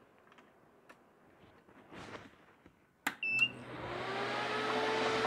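A switch clicks about three seconds in, the cooler's flow-alarm buzzer gives a short beep, and the homemade TIG water cooler's 12 V diaphragm pump and fans start up and run with a steady hum. The beep stops as soon as the coolant starts moving.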